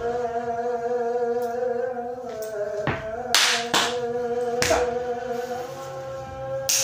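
Music with a reedy wind instrument holding long, slightly wavering notes, broken by several sharp slaps of the hands, clustered from about three to five seconds in and once more near the end.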